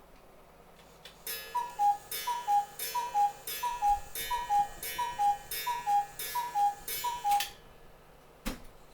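Cuckoo clock calling the hour: about nine two-note falling 'cuck-oo' calls from its bellows pipes, evenly spaced, each with a click from the mechanism. A single knock follows near the end.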